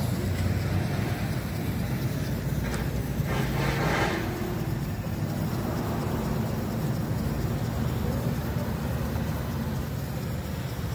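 Steady low rumble of a motor vehicle engine running close by, with a brief hissing swell about three to four seconds in.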